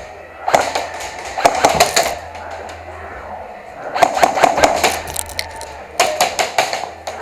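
Airsoft guns firing in three rapid bursts of sharp pops, the first about half a second in, the others about four and six seconds in.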